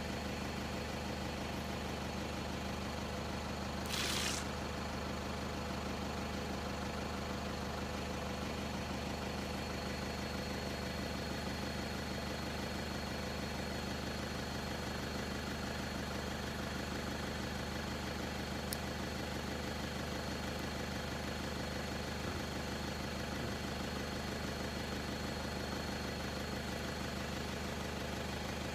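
Vehicle engine idling steadily, a constant low hum, with a brief hissing burst about four seconds in.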